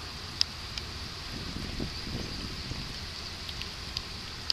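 Quiet outdoor ambience: low wind rumble on the microphone under a steady high-pitched hiss, with a few sharp ticks.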